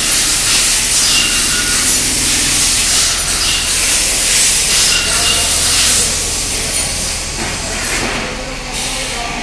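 Loud steady hiss of shop machinery with a low hum under it. It eases off and thins out near the end.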